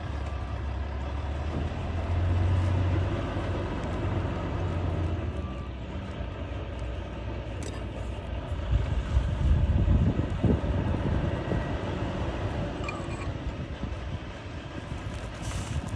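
Low engine rumble of passing motor traffic, swelling twice, about two seconds in and again near the middle, with a few faint clicks.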